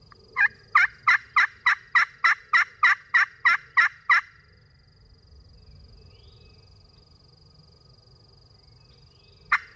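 Slate pot turkey call worked with a striker, giving a run of about thirteen hen yelps at roughly three a second, then a single sharp note near the end.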